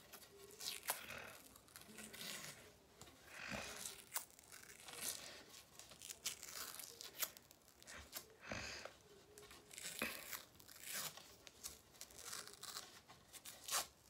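White hockey tape being pulled off its roll and wound around the knob end of a hockey stick, in short, irregular rasping pulls.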